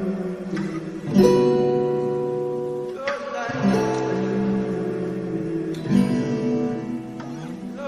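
Instrumental passage of a song: guitar chords strummed and left to ring, with a new chord every second or two and no vocals.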